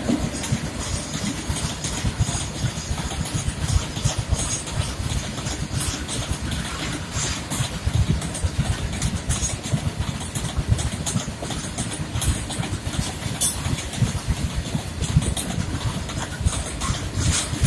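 Loaded open goods wagons of a freight train rolling past close by: a steady low rumble of steel wheels on rail, with frequent sharp clicks and rattles from the wagons.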